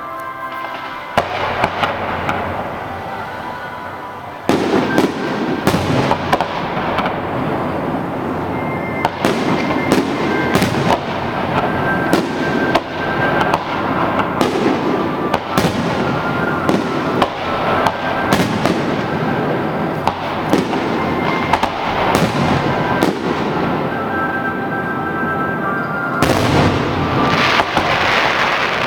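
Fireworks display: a dense run of bangs and crackling starts about four seconds in, with a heavy cluster of bursts near the end. Music plays underneath.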